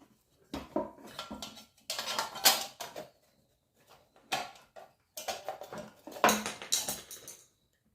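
Pedestal fan parts being handled and fitted together during reassembly: irregular clicks, clatters and knocks with brief scraping, the loudest knocks about two and a half seconds in and again about six seconds in.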